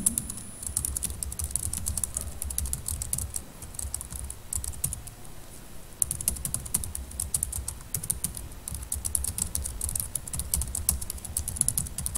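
Typing on a computer keyboard: a quick run of key clicks that thins out briefly about five seconds in, then carries on as a sentence is written out.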